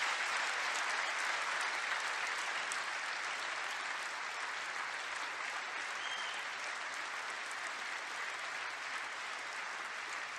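Large audience of lawmakers applauding steadily after a line of a speech, the applause slowly dying down.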